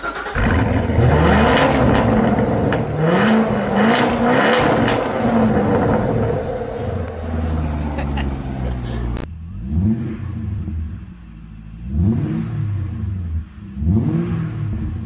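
V8 engine revving: for about nine seconds its pitch climbs and drops back several times, then the sound cuts to short, sharp throttle blips that rise and fall about every one to two seconds.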